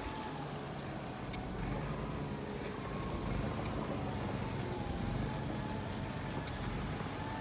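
Motor vehicles running slowly on a snow-covered road, a small van just ahead and a wheel-loader snowplow further on. A steady low engine rumble carries a faint whine that slowly wavers in pitch, with a few light clicks.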